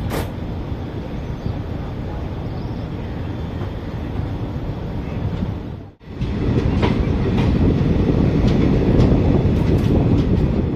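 Kanchan Kanya Express passenger train running, heard from aboard as a steady rumble. About six seconds in the sound cuts off abruptly and comes back louder, with the wheels clicking over rail joints several times.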